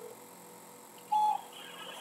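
A steady electronic tone cuts off at the start, then a single short electronic beep sounds about a second in, heard over a phone line.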